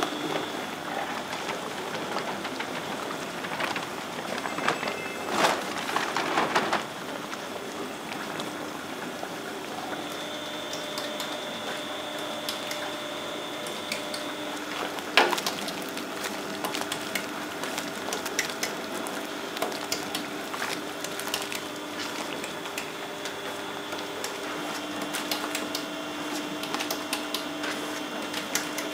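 Curry roux production line machinery running: a steady mechanical hum with scattered clicks and clatter, a burst of rattling about five to seven seconds in and a single sharp knock around fifteen seconds.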